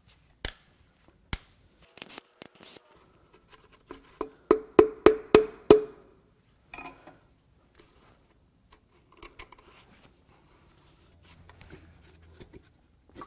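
A few clicks from a ratcheting wrench on a main bearing cap nut. About four seconds in comes a quick run of about six sharp metal knocks with a short ringing note, as a brass bar strikes the main bearing cap to work it loose. Faint clinks of handling follow.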